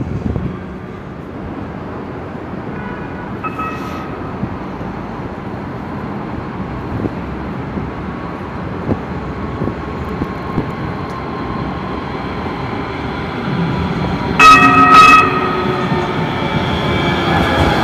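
NJ Transit Hudson-Bergen Light Rail car approaching on street track, its rolling and motor noise growing louder. Two short horn blasts sound about three-quarters of the way through.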